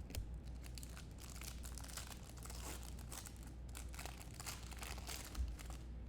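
Crinkling and tearing of foil trading-card pack wrappers as packs are ripped open, in a quick crackly run, with a single low thump about five seconds in.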